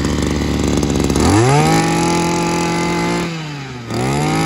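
Small 26cc petrol engine of a mini portable water pump running on a test start: it idles, is revved up about a second in and held high, eases back toward idle, then is revved up again near the end.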